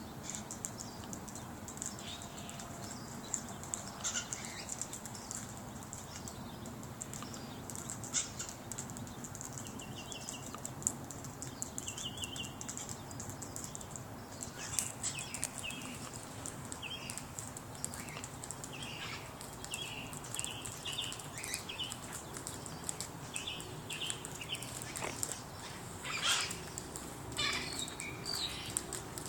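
Parrots calling: short, harsh squawks in scattered clusters that come more often in the second half, over steady background noise.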